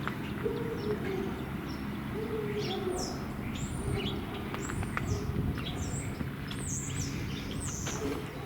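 Small birds chirping outdoors: a string of short, high chirps, about one or two a second, over a steady low background rumble.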